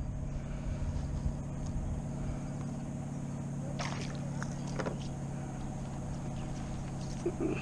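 A steady low motor hum with a low rumble beneath it, broken about four seconds in by a sharp splash as a hooked fish thrashes at the surface, and a second, smaller splash about a second later.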